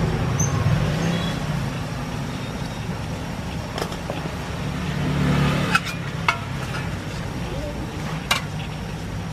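Steady low hum with four sharp metallic clicks spread through it, from hand tools crimping and cutting a refrigerator's copper charging tube.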